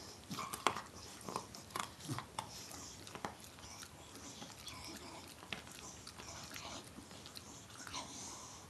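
Beagle gnawing a chew stick: crunchy bites and clicks for about three seconds, then only an occasional click.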